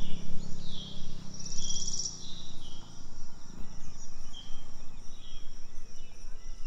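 Insects and birds chirping: short chirps repeating roughly once a second, with a brief fast-pulsing insect trill about one and a half seconds in. A low hum underneath fades away over the first few seconds.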